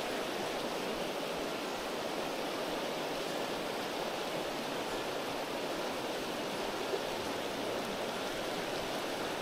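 Fast, shallow mountain river running steadily over rocks and riffles.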